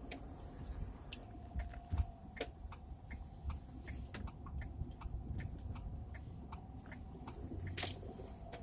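Car cabin noise while driving: a steady low road and engine rumble with many irregular small clicks and ticks, picked up by a phone's microphone.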